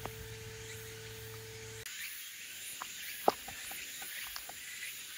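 Faint outdoor insect chirring high in pitch, with scattered light clicks and one sharper tick a little after three seconds in. For the first two seconds a low steady hum runs underneath, then cuts off suddenly.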